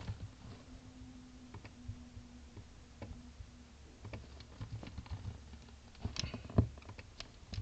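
Computer keyboard typing: scattered single keystrokes and clicks, with a busier run of louder clicks about six seconds in.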